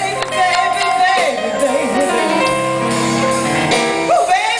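Live blues band playing on keyboard, electric guitars and drums, with a gliding singing voice over the top.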